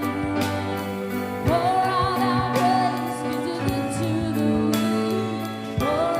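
Music: sustained chords with a singing voice holding long, wavering notes, coming in about a second and a half in and again near the end.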